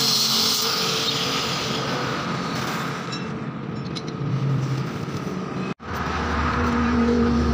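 Electric angle grinder cutting through a steel bar, a steady high grinding hiss that dies away after about two and a half seconds. From about six seconds in, a steady low hum with a held tone takes over.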